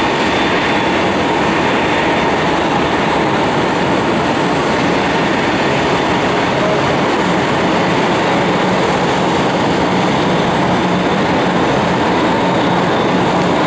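Boeing 747-400's four GE CF6 turbofan engines at takeoff thrust: a steady jet roar that holds an even level through the takeoff roll and liftoff.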